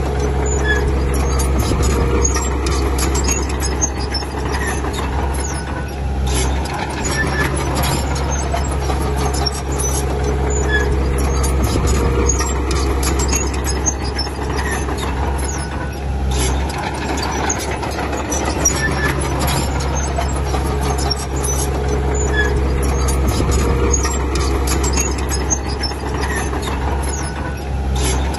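Heavy diesel earthmoving machinery running steadily: a low engine drone with many small clanks and squeaks over it.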